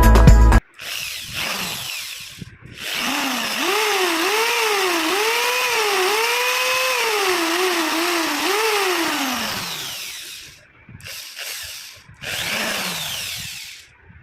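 Black & Decker 550W hammer drill running free with its motor whine rising and falling as the trigger is squeezed and eased several times. It winds down near the end of each run and gives two short bursts toward the end. Music cuts off just after the start.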